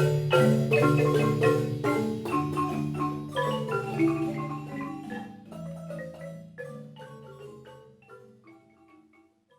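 Instrumental music of quick struck notes over a sustained bass line, fading out steadily to silence by the end.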